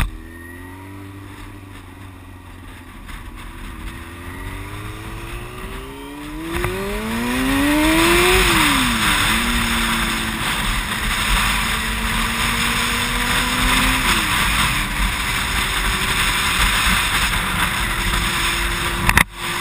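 Yamaha R6 inline-four engine through a newly fitted Yoshimura exhaust, pulling away and rising in pitch. The pitch drops at an upshift about eight seconds in and again around fourteen seconds, then the engine settles into a steady cruise. Wind rushes louder over the microphone as speed builds, and there is a sharp click near the end.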